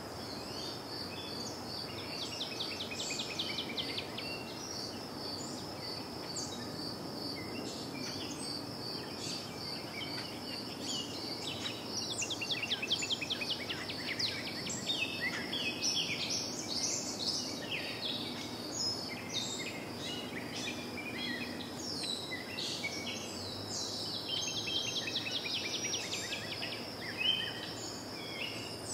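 Outdoor ambience: many birds chirping and twittering, busiest in the middle, over a steady high insect trill like a cricket's, with a low background rumble of distant traffic.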